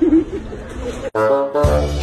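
A person's voice for about a second, cut off abruptly, then background music with sustained horn-like notes over a low bass.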